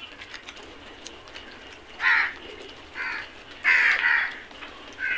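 Crows cawing: about four caws from about two seconds in, the last two running together.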